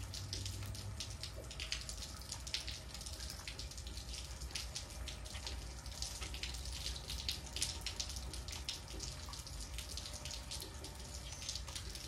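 Light rain falling, with many small drops hitting wet ground and a puddle in an irregular, constant patter of little ticks.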